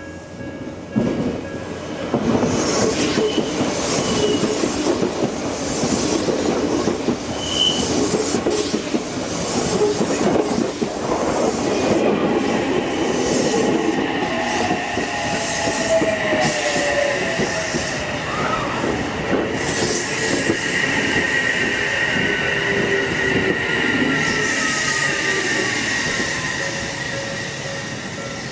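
An Odakyu electric train passing over a level crossing: a loud run of wheel clatter over the rail joints that builds up about a second in. From midway a high whine and wheel squeal join it, with tones that slide down in pitch near the end.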